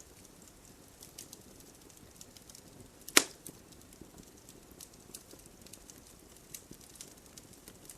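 Wood fire crackling: scattered small pops and ticks over a faint hiss, with one loud sharp snap about three seconds in.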